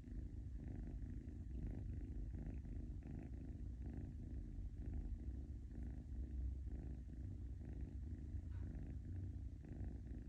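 A sleeping pet's small, soft snore: a low, steady rumble that goes on without a break.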